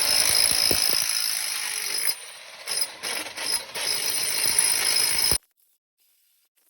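Steady metallic rattling and clinking from a trencher's digging chain working through dirt, with a few sharper clicks in the middle. It cuts off suddenly about five seconds in.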